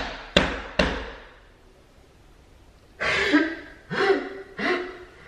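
Three quick thuds about half a second apart, then, after a short lull, three short wordless vocal outbursts.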